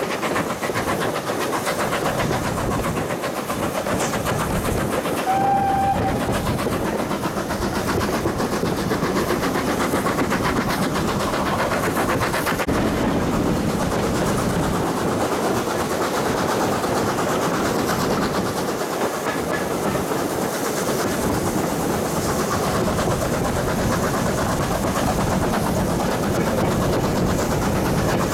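A train running along the track with steady wheel and rail noise and the clickety-clack of wheels over rail joints. A short high tone sounds about five seconds in.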